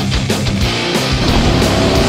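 Heavy rock music with a driving beat of about four strokes a second, growing fuller and denser about half a second in.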